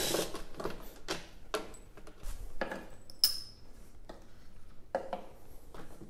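Light metallic clinks and knocks as loose bolts and the plastic engine shroud are handled. About three seconds in, a sharper clink rings briefly, a bolt dropped into a steel parts dish.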